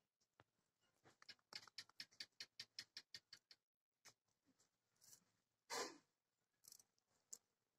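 Faint, quick clicking of a small knife blade working on small shrimp as they are cleaned by hand, about six clicks a second for a couple of seconds. Then a few scattered ticks and one louder scrape.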